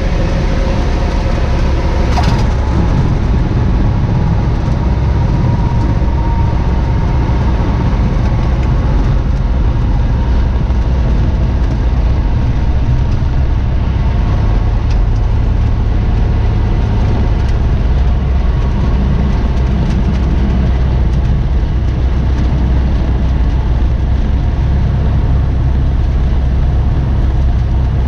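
Cessna 172's piston engine at low power with the propeller turning, heard from inside the cabin as the plane rolls out on the runway after landing: a steady, loud drone, with a single knock about two seconds in.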